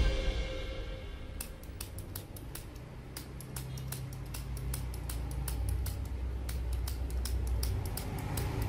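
Spring-loaded lancing pen clicking rapidly as it pricks the skin for wet cupping, a string of sharp clicks at roughly four to five a second starting about a second and a half in.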